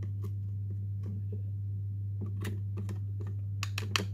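Small plastic and metal clicks and taps as a handheld electric incense burner is handled with a small metal tool: a few separate clicks, then a quick run of them near the end, over a steady low hum.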